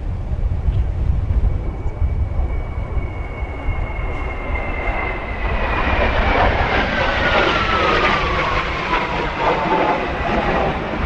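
Kawasaki T-4 jet trainer flying past: a high turbine whine that slides steadily down in pitch as it passes, with the rushing jet noise swelling from about halfway in. Wind buffets the microphone with a low rumble throughout.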